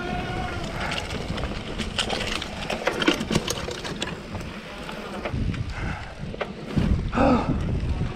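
Electric mountain bike riding fast over a sandy dirt trail: wind buffeting the microphone, with tyre noise and repeated clicks and rattles from the bike jolting over bumps.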